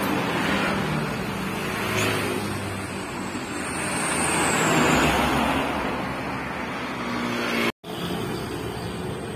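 Road traffic passing close by: motorcycle engines at first, then a small truck whose engine and tyre noise swells to a peak about five seconds in and fades away. The sound breaks off abruptly near the end, then lighter traffic noise goes on.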